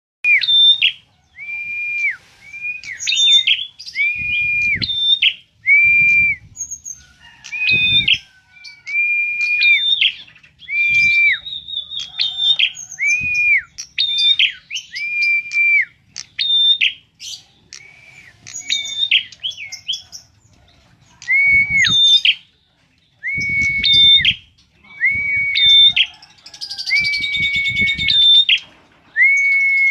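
A caged prenjak calling loudly and shrilly. It repeats one sharp note over and over, about one a second, each a quick upward flick into a short held whistle. It goes quiet for a few seconds in the middle, then starts again. Low thumps from the bird moving about the cage come in now and then.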